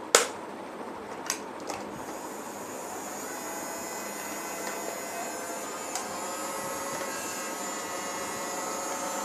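A few sharp clicks of handling in the first two seconds, then a steady machine hum with a faint whine that slowly gets a little louder.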